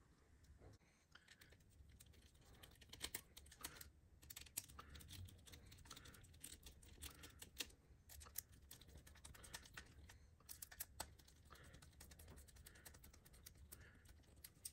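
Faint, irregular small clicks and taps of hands and a precision screwdriver working on a metal RC motorcycle chassis while a steering servo is fitted and screwed in place.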